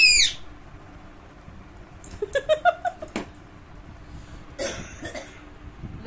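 Pet parakeet screeching loudly at the very start, then a quick run of short chattering calls about two seconds in, and another harsh squawk about five seconds in.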